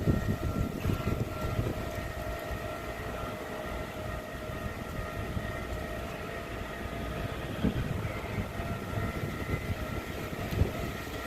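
Level-crossing warning alarm sounding a steady, unbroken tone over the low rumble of a passing Tze-Chiang express train, with a louder knock about two-thirds through and another near the end.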